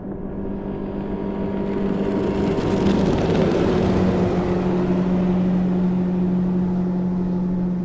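A Mercury 90 outboard on a small skiff at wide-open throttle making a drive-by at about 41 mph. It is a steady engine drone that grows louder toward the middle and drops slightly in pitch about two and a half seconds in as the boat passes.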